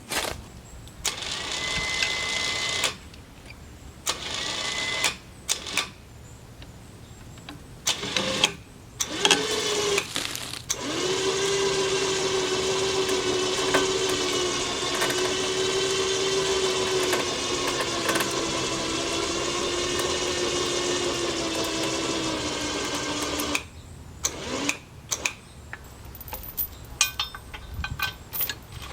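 Electric winch motor on a log arch running in several short bursts, then a long steady pull of about thirteen seconds, hoisting a log; its hum dips a little in pitch now and then under the load.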